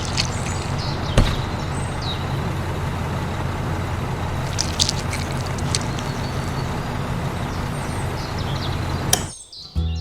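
Small electric motor of a DIY model tractor running with a steady hum, with a few sharp clicks and knocks; the sound cuts off suddenly about nine seconds in.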